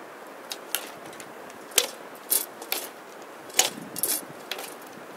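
A bow and arrows being shot in quick succession: sharp snaps and clacks of bowstring and arrows. The loudest come about every two seconds, with lighter clicks of arrows being handled in between.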